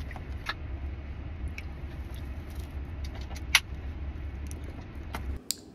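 Steady low hum inside a car's cabin, with scattered small clicks and crackles as a gyro is handled and bitten into; the hum cuts off near the end.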